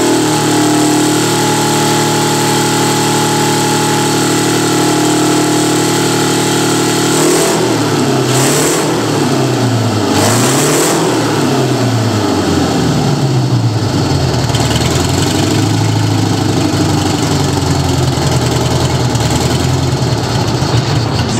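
Detroit Diesel 8V71 two-stroke V8 diesel running on a test stand. It holds a steady speed for about seven seconds, is then revved up and down several times at the throttle, and settles back to a steadier run.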